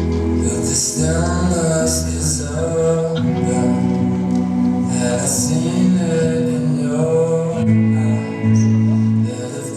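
Music with a singing voice over sustained bass notes and plucked guitar.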